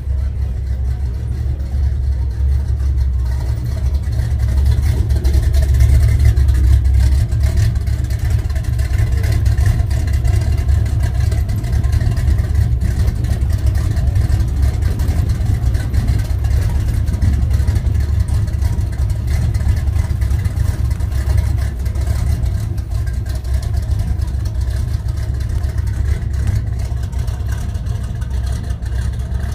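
Vehicle engine and road noise heard from inside a vehicle driving slowly away: a loud, steady, deep rumble.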